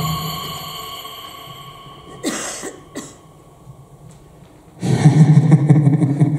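Backing-track music fading out, then a cough about two seconds in and a shorter second one a second later. Near the end, loud applause breaks out suddenly.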